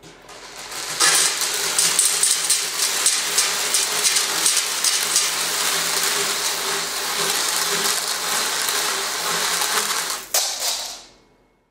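A long string of beads running off a tabletop under its own weight, the strand sliding across the table and pouring over the edge onto the floor in a dense, steady rattle for about nine seconds. It breaks off briefly near the end, then a last short clatter as the tail of the strand goes over, and it stops.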